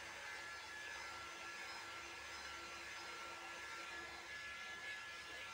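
Handheld hair dryer running steadily, blowing air onto a freshly bathed puppy's fur: an even rushing hiss with a thin steady whine.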